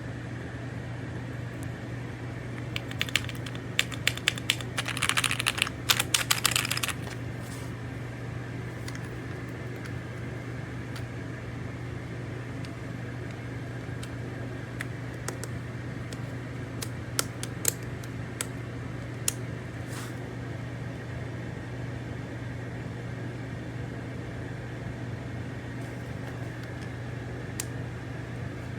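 Keys clacking on an Aula F65 mechanical keyboard with Graywood V3 switches: a quick run of keystrokes a few seconds in, then scattered single presses, over a steady low hum.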